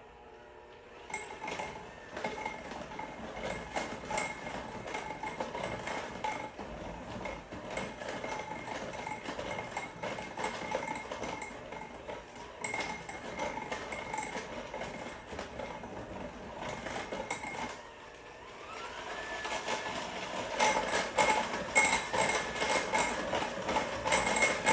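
Electric mixer beating a crumbly streusel topping in a bowl, its motor running with a steady whine and the ingredients and beaters clattering against the bowl. About three quarters of the way through the motor speeds up with a rising whine and the clatter grows louder.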